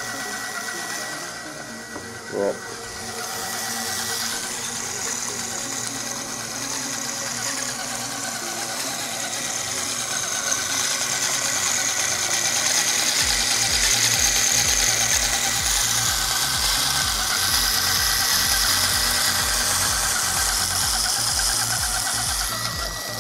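Brushed electric RC motor, run from a Traxxas XL-5 controller, driving a custom steel 8x8 truck's transmission and driveline on a bench test: a steady mechanical whir of gears and shafts with a constant high whine. There is a short knock about two and a half seconds in, and from about ten seconds on the running gets louder, with a low rhythmic throb underneath.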